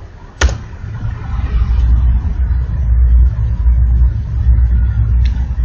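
A single sharp click, then a loud, steady low rumble that builds from about a second in and holds.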